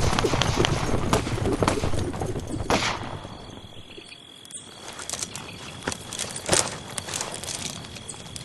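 Horse hooves clip-clopping, then a sharp crack about three seconds in. After it the sound drops quieter, with scattered knocks and a faint steady high tone.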